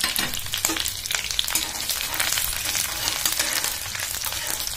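Minced ginger and garlic freshly added to hot oil, frying with a steady sizzle and dense crackling. Near the end a slotted metal spoon stirs them around the wok.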